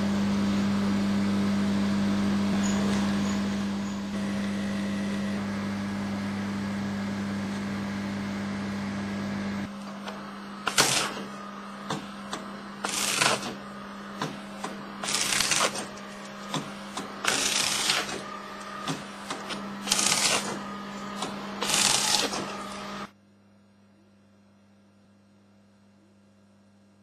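Morsø EH electro-hydraulic mitre guillotine at work: a steady motor hum, then about six sharp cutting strokes roughly two seconds apart with small clicks between them. The sound cuts off abruptly near the end.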